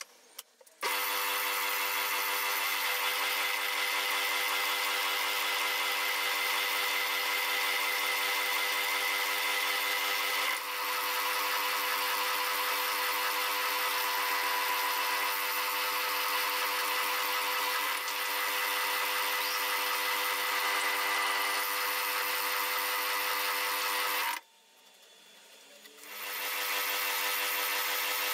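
Metal lathe running with a 7.8 mm drill bit boring a pilot hole for an 8 mm reamer into an aluminium workpiece held in a four-jaw chuck: a steady machine whine with a hiss over it. It starts abruptly just under a second in, drops out for about two seconds near the end, then rises again.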